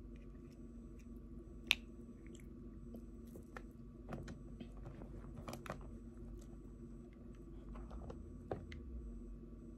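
Crab leg shells being cracked and pulled apart by hand: a scatter of sharp cracks and snaps, the loudest about two seconds in, with small crunching and squishing sounds between.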